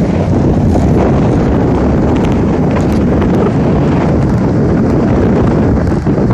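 Loud, steady wind buffeting the microphone, with Atlantic Ocean surf beneath it.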